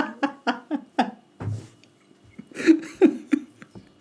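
Laughter in rapid pulses, about four a second, fading out after about a second, then a second, shorter burst of laughter near the end.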